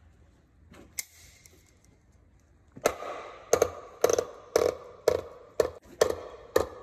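A single sharp click about a second in, then a run of hard metal clanks, about two a second, each ringing briefly, as steel bars work against a gear on a truck gearbox's clutch-gear stack.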